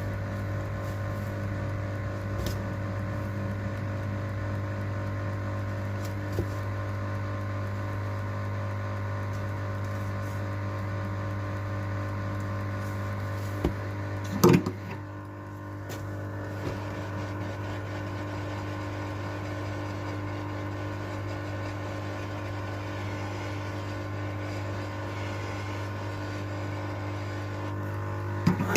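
Steady electrical hum, a low drone with many overtones, with a few sharp clicks or knocks: the loudest is about halfway through, and there is another near the end.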